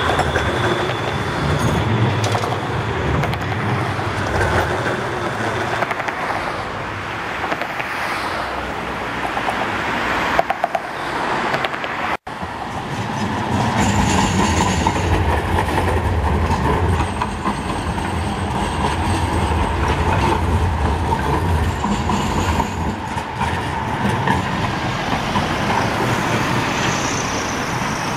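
Street trams running on city track: steady rolling and motor noise with a hum. The sound cuts off abruptly about twelve seconds in, then picks up again.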